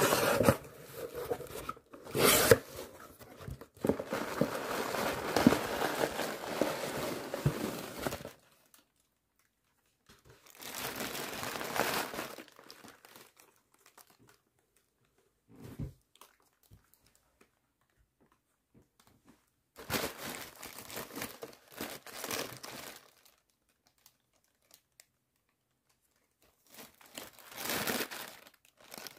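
Plastic air-pillow packing and a cardboard box being handled, crinkling and rustling. There is a long stretch at the start, then four shorter bursts with silent gaps between.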